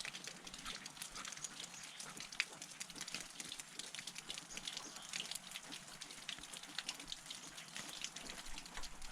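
Creek running high with snowmelt: a faint, steady rush of water dotted with small ticks and splashes.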